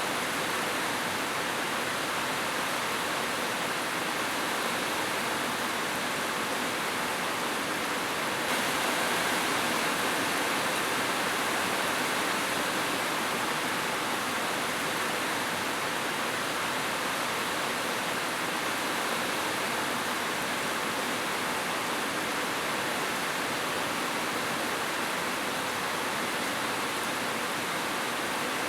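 Heavy rain falling steadily, a dense even hiss that gets slightly brighter about eight seconds in.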